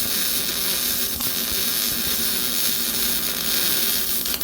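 Stick-welding arc crackling and hissing steadily as a bead is run along a steel seam.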